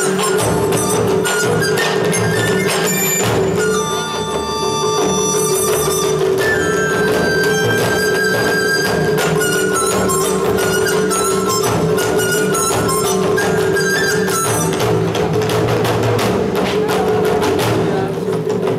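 Live drum-troupe music on large barrel drums, with a dense run of drum strikes over a steady held tone and short melodic lines.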